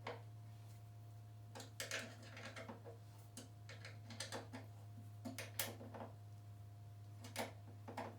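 Scattered short metallic clicks and clinks from a hand tool tightening the fuel tank's mounting bolts, in small irregular clusters over a steady low hum.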